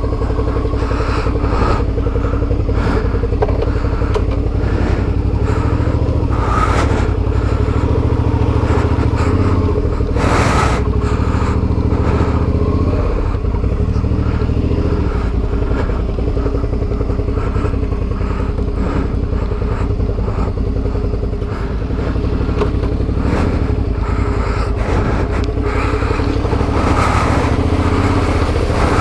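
Adventure motorcycle engine running steadily at low revs, with scattered clatters and scrapes over it.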